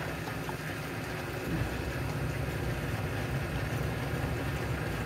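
A motor idling steadily: a low, even rumble without pauses.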